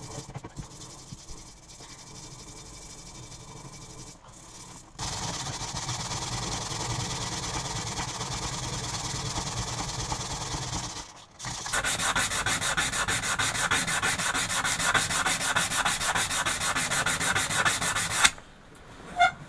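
Sandpaper rubbed by hand over the steel head of an axe, sanding out grinder scratches. Steady rubbing for the first half, louder from about five seconds in, then quick, even back-and-forth strokes from about midway that stop shortly before the end.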